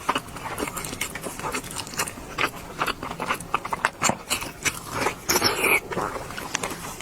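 Close-miked chewing of red-braised pork belly: irregular wet smacks and mouth clicks, with a longer, hissier sound about five and a half seconds in.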